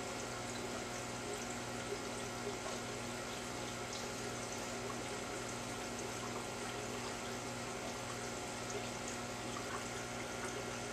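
Aquarium sponge filters' air-lift tubes bubbling, a steady splashing water noise at the surface, with a steady low hum underneath.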